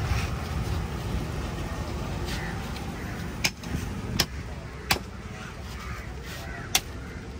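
Sharp knocks of a heavy cleaver striking a large fish on a wooden chopping block: three in quick succession about halfway through, then one more near the end. Steady road-traffic hum runs underneath.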